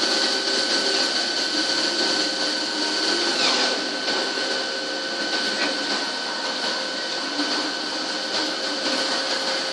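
CNC lathe running, its spindle turning a white plastic bar while the turning tool cuts it; a steady machine noise with a constant high-pitched hum.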